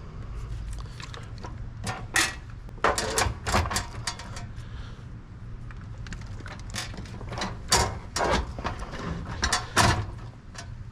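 Drink bottles knocking and rattling as they are loaded by hand into a vending machine, many separate clatters in irregular bunches over a steady low hum.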